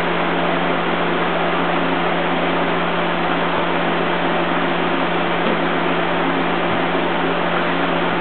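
Steady hum with a loud, even hiss, unchanging throughout.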